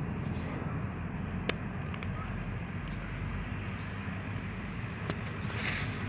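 Steady low rumble of outdoor street background noise, with a single sharp click about a second and a half in and a brief noisy burst near the end.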